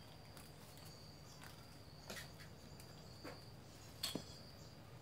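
Mostly quiet: a few faint clicks and light taps of small metal parts being handled as a sprayer's brass pump head is taken apart by hand, the clearest about four seconds in. A faint steady high-pitched tone runs underneath.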